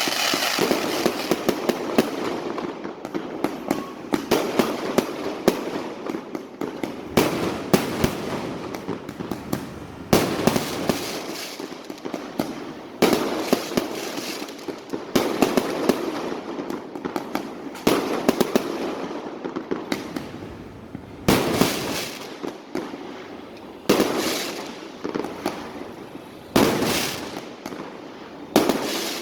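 Street fireworks going off: a constant rattle of crackling bangs, with louder booms about every two to three seconds.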